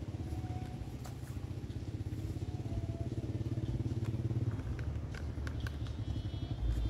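A vehicle engine running with a rapid low pulse, with a few light clicks and rattles over it; the low rumble grows louder near the end.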